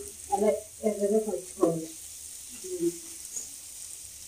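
Spice-marinated fish steaks shallow-frying in oil in a pan, with a steady sizzle. A woman speaks over it for the first two seconds or so, then briefly again.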